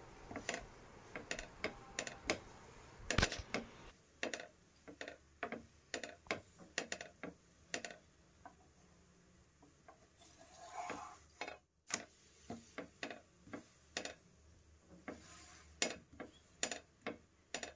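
Wooden spatula tapping, pressing and scraping on a flat griddle (tawa) while a chapati cooks: a run of irregular light clicks and knocks, a few each second.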